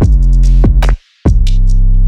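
Background electronic music with a heavy bass and a drum-machine beat; it cuts out for a moment about a second in, then comes back.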